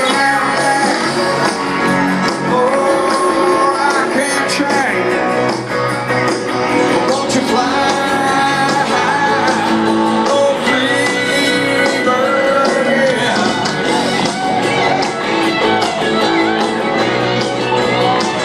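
Live rock band playing loudly, with electric guitar lines holding and bending long notes over the drums and bass, heard through a phone's microphone in the concert crowd.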